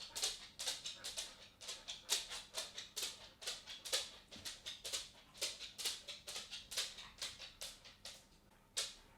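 A dog's claws clicking on a wooden floor as it walks: an irregular run of sharp taps, several a second, with a short pause near the end before the steps resume.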